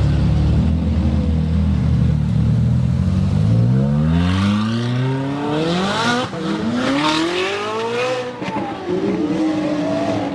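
Lamborghini engine running at low revs, then accelerating hard: its pitch climbs, drops sharply as it shifts up about six seconds in and again about eight seconds in, and climbs again before settling near the end.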